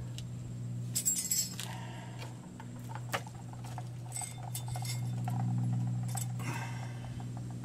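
Brake pad abutment clips for a caliper bracket clinking and clicking as they are handled and pressed into place by hand: a few scattered light metallic clicks over a steady low hum.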